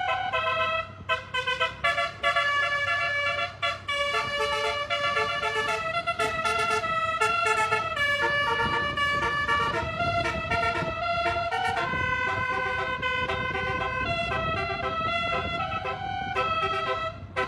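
Bus 'telolet' basuri musical air horn playing a tune: several horn tones sound together and jump from pitch to pitch every fraction of a second, with a few short breaks in the first four seconds.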